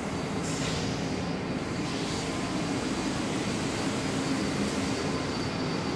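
Steady drone of an R62A subway train standing at the platform, mixed with the wash of the underground station.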